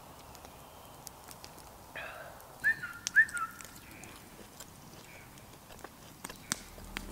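A fork clicking against a frying pan during eating, with a few short calls that fall in pitch about two to three seconds in, the loudest two close together.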